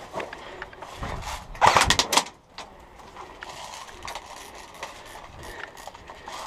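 A short rattle of rapid mechanical clicks about two seconds in, then scattered light clicks and knocks as an airsoft rifle and gear are handled.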